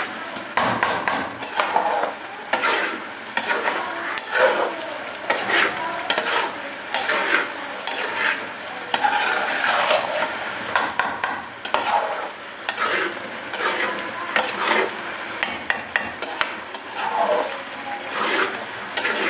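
Mutton karahi sizzling in butter and ghee in a steel karahi over a high flame, while a metal spoon stirs and scrapes the meat and masala around the pan in repeated irregular strokes: the bhunai stage, frying the curry down.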